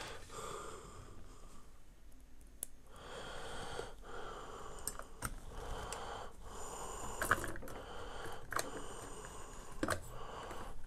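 Aluminium headset-stand arm being pushed and knocked against its base, giving a string of small clicks and knocks about once a second, with breathing in between. The arm is fitted the wrong way round, so it will not seat.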